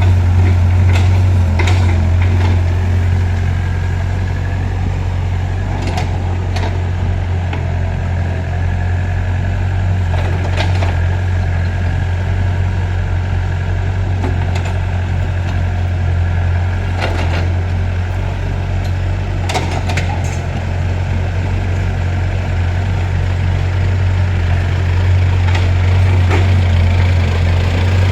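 Heavy construction machine's diesel engine running steadily at a low, even pitch, with occasional short clanks and knocks over it.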